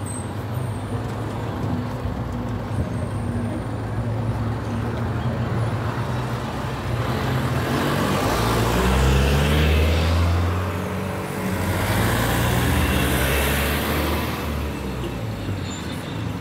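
Road traffic: vehicle engines running with tyre and road noise. Two louder swells of passing vehicles come about eight to ten seconds in and again around thirteen seconds.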